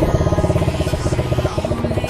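Engine of a 125cc single-cylinder ATV running under way, a rapid even chug of firing pulses that eases slightly in loudness toward the end.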